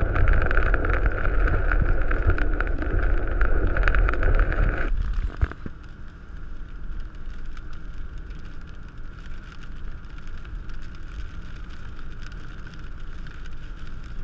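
Car driving on a wet road in rain: steady road and wind noise with ticks of rain. The noise drops suddenly about five seconds in, leaving a quieter steady hiss.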